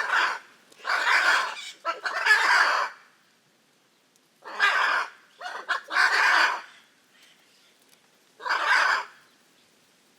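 Hyacinth macaws giving raucous, harsh squawks: about seven loud calls, each up to about a second long, with quiet gaps of one to two seconds between them.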